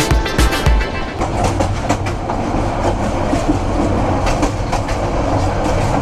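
Passenger train running on metre-gauge track, a steady rumble and rush with wheels clacking over the rail joints.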